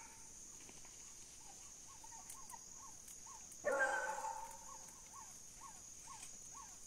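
Hunting hounds baying in the distance on a trail: a run of faint, quick barks, and one louder drawn-out bay a little past halfway that fades over about a second.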